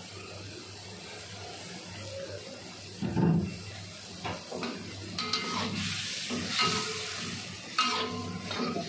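Metal spatula scraping and stirring in an aluminium wok of chicken simmering in its juices, over a steady low hum and a light sizzle. There is a single knock about three seconds in, and the scraping strokes begin about halfway through.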